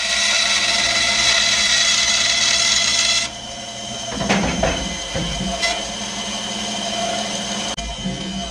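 Benchtop bandsaw ripping a wooden board: a loud steady cutting noise with a fixed whine. About three seconds in, the cutting sound stops abruptly and the saw runs on more quietly, with a few short knocks.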